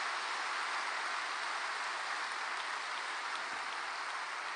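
Audience applauding, a steady even wash of clapping that eases off slightly near the end.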